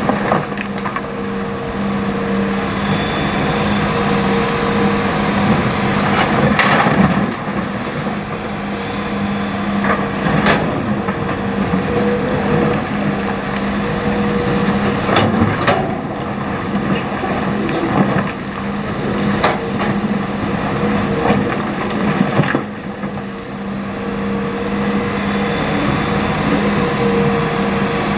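Hitachi ZX200 excavator's diesel engine running steadily under load as it digs and loads river gravel, with scattered sharp knocks of rock against steel, about half a dozen over the stretch.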